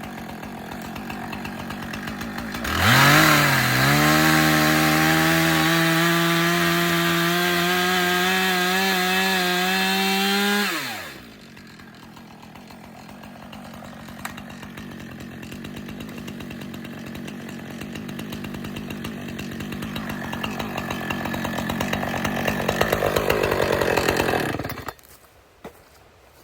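Husqvarna two-stroke chainsaw bucking a fallen tree trunk. About three seconds in it jumps to full throttle and holds a loud, steady high-revving cut for about eight seconds, then drops back. A softer cut then builds toward the end and stops suddenly.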